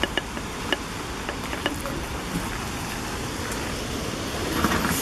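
Goats browsing the leaves and twigs of a fallen tree, with a few sharp snaps and clicks in the first two seconds, over a steady background rumble.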